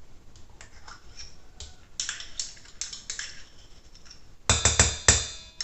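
Spoon scraping and tapping as margarine is spooned into a mixing bowl, then two loud ringing knocks of utensil against dish near the end.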